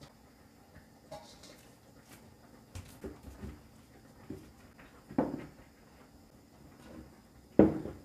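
Scattered light knocks and clatters of tableware as greens are tipped from a stainless-steel colander onto a plate, with the loudest knock near the end as a ceramic plate is set down on a wooden table.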